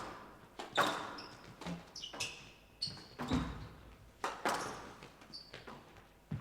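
Squash rally: the ball cracks off rackets and walls about once a second, each hit echoing in the hall, with short high squeaks from players' shoes on the court between the shots.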